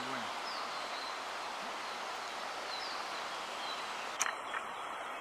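Steady rush of river water over a shallow riffle, with a faint short high chirp recurring about once a second and a single sharp click about four seconds in.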